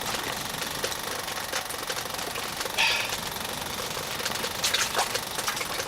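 A steady mechanical running noise with a fast knocking rattle, with scattered faint clicks and a few short higher sounds about three and five seconds in.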